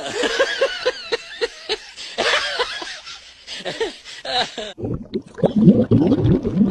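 A person laughing in short repeated bursts, about four a second. Near the end it cuts to a pet making low, rough vocal sounds.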